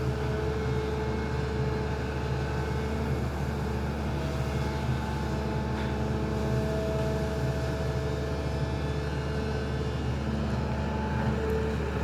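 SANY excavator's diesel engine running steadily, with a steady hum and a few held tones that shift slightly in strength partway through.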